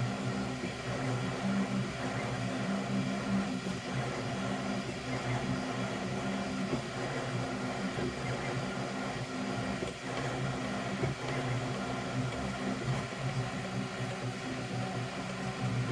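FlashForge Adventurer 5M 3D printer running a print: its motors hum in a set of low tones that keep switching on and off, over a steady fan-like hiss.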